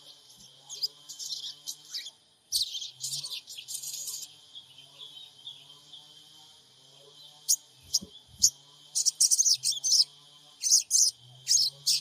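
Sogon birds calling with sharp, high, rapid chirps: a few single chirps, then a dense burst about two and a half seconds in, and quick runs of chirps from about halfway on. This is a lure recording played to provoke a sogon into calling.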